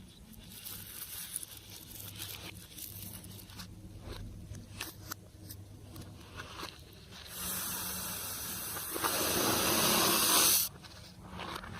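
Slime being handled and squeezed, with faint sticky clicks and crackles. A stretch of steady hissing, air being forced out through the slime, comes about seven seconds in and cuts off abruptly about three seconds later.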